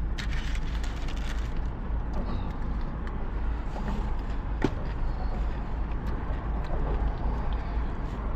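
Steady low rumble of a car heard from inside the cabin, with a few faint clicks and rustles of handling, one sharper click about halfway through.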